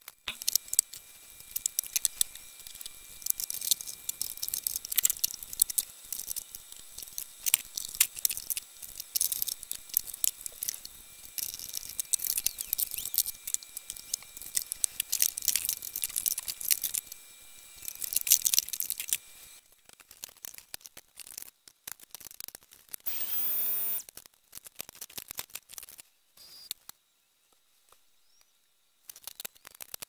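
Shop cleanup: a busy run of clattering, scraping and knocking as tools and objects are picked up, set down and moved around, dense for about twenty seconds and then thinning to scattered knocks, with a brief steady whir about 23 seconds in.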